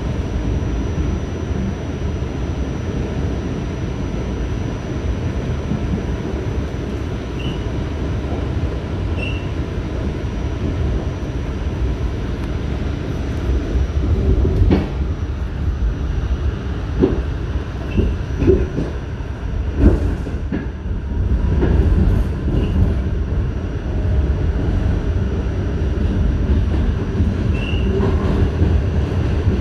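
NYC subway shuttle train running along the track, heard from aboard: a steady low rumble of wheels on rail, with several sharp knocks about halfway through and a few brief faint wheel squeals now and then.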